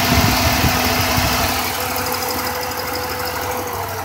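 Electric radiator cooling fans of a 2000 Chevy Impala running with a steady rush of air, over its 3.8L V6 running. The fans now switch on, a sign that the cooling fan 2 control circuit fault (code P0481) has been cured. The sound grows gradually quieter over the second half.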